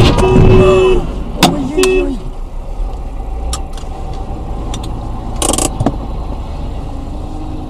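A motorcycle crashing into the side of a car: a sudden crash right at the start and a second knock about a second and a half in, over the steady engine and road noise of the dashcam car.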